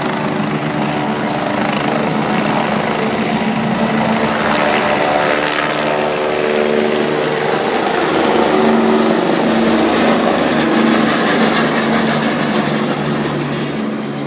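UH-72 Lakota helicopter lifting off and climbing away, its rotor blades beating steadily over the turboshaft engine noise. The sound is loud and continuous, swelling slightly after the middle and easing off a little near the end.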